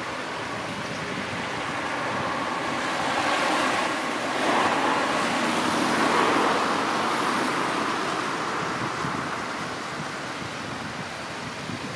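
Tractor and its trailing grass mower running, a steady rushing whir that grows louder about three seconds in and fades back after about seven seconds as the machine passes closer.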